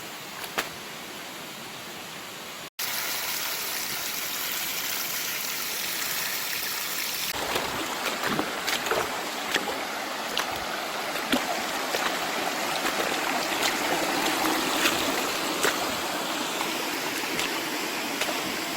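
Rainforest stream water running over rocks, a steady rush that breaks off and comes back louder about three seconds in, with scattered sharp clicks and small splashes in the later part.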